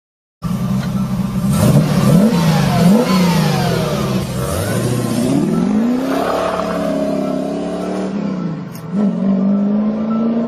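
A car engine being revved repeatedly, its pitch climbing and dropping several times, then rising to a steadier higher pitch near the end.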